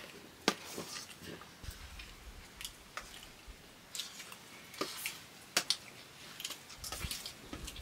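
Faint chewing with scattered light clicks and taps at an irregular pace, the sounds of someone eating a meal of curry and rice.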